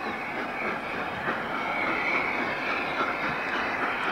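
Gresley LNER A3 Pacific 60103 Flying Scotsman, a three-cylinder steam locomotive, running toward the listener with its train. It makes a steady, noisy sound of working steam with a few faint knocks.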